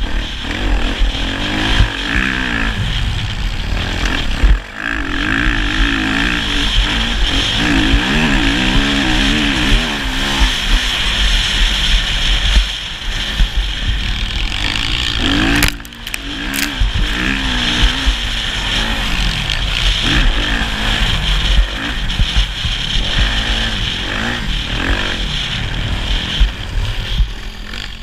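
Motocross bike engine being ridden hard, its pitch climbing and falling again and again as the throttle is worked, with a low rumble underneath. The sound dips briefly twice, about four seconds in and about sixteen seconds in.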